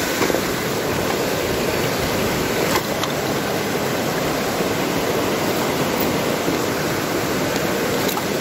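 Steady rush of fast-flowing creek water, with a single short knock about three seconds in.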